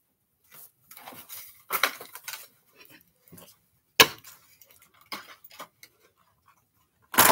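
Hard objects being handled and set down on a wooden table: rustling and light clatter, with a sharp knock about four seconds in as a boxed display model is put down, and another loud clatter near the end.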